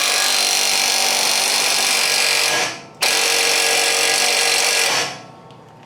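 Impact wrench driving the screw of a ball joint press, run in two long bursts of about three and two seconds with a short pause between. The seized lower ball joint does not press out.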